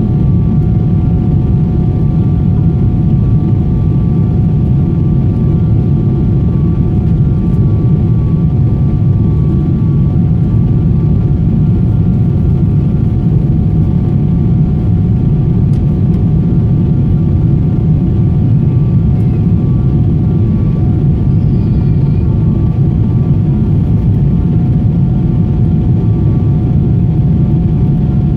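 Boeing 777-200ER jet engines running steadily at high power, heard inside the passenger cabin: a deep, even rumble with several steady whining tones above it.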